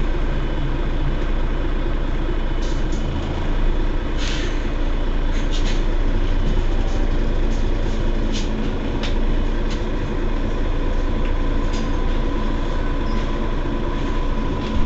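Mercedes-Benz Citaro Facelift city bus engine idling steadily while the bus stands still, with a brief hiss about four seconds in and a few light ticks.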